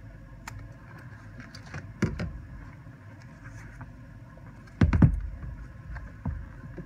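Scissors snipping through a leather boot shaft beside the zip, then the boot and the cut-off leather handled and bumped on the bench, with dull thumps and rustling about two seconds in and again about five seconds in, the later one loudest.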